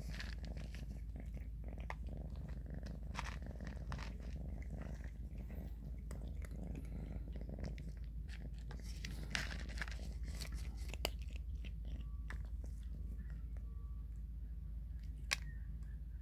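Kittens crunching dry cat kibble, with a steady low purr underneath. Short sharp crunches come throughout, with a few louder ones in the second half.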